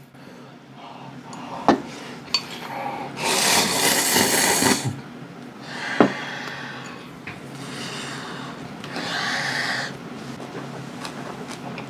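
Close-miked eating of instant ramyun noodles with cabbage kimchi: a loud, hissy slurp about three seconds in, a shorter one near the end, and chewing in between, with a few sharp clicks of chopsticks against the glass bowl.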